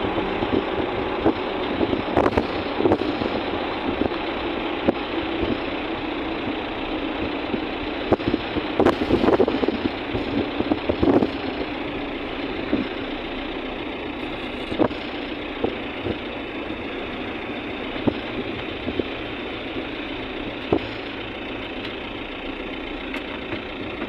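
Car driving on a rough dirt road, heard from inside the cabin: steady engine and road noise with scattered knocks and rattles, thickest about two seconds in and again around eight to eleven seconds in.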